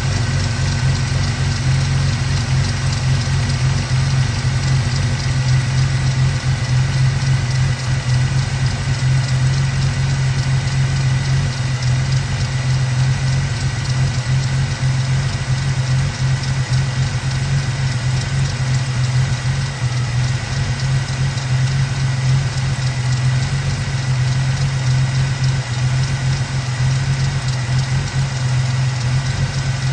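2002 Ford Mustang's 3.8-litre V6 idling continuously and somewhat unevenly, the rough idle that also makes it stall. The owner suspects a vacuum leak, with the PCV valve and breather hose already replaced.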